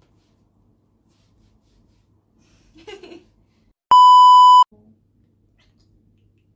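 A loud, steady electronic beep, the colour-bars test-pattern tone used as an editing sound effect. It starts about four seconds in, lasts under a second and cuts off abruptly. Around it is quiet room tone.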